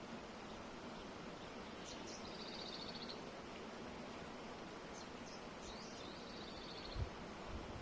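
Steady rush of flowing water with a small bird calling over it: two rapid, high trills of about a second each, with a few short chirps between. A brief low thump near the end.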